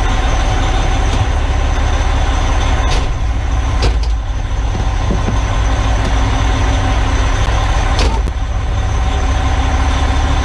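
Heavy diesel engine idling steadily with a low rumble, with a few sharp clicks.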